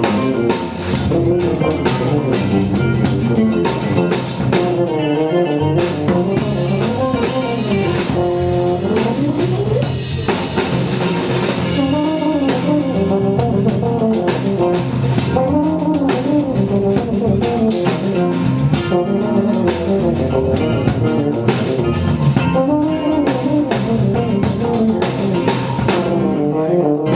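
Live jazz from a small group: a drum kit with cymbals and an upright bass, playing together under a wandering melodic line.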